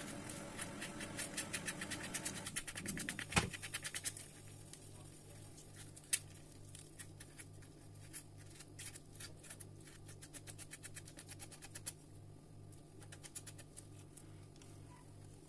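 Metal spoon scraping aloe vera gel off a cut leaf into a glass bowl: a rapid run of small wet scrapes and clicks, densest over the first few seconds, with a sharp tap about three and a half seconds in and another about six seconds in.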